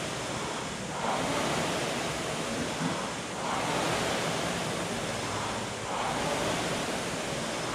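Air-resistance flywheel of a rope- or handle-pulled exercise machine whooshing in a steady rhythm of strong pulls, one swell of rushing air about every two and a half seconds.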